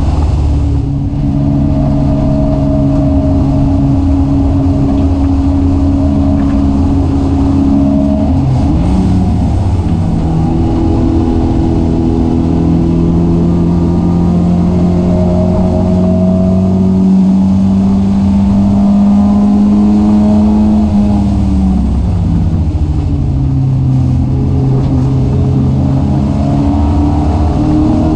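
Race car engine heard from inside the caged cabin, running hard through a lap. The note drops near the start, climbs again about eight seconds in and rises slowly through a long pull. It falls back about twenty-one seconds in and picks up again near the end.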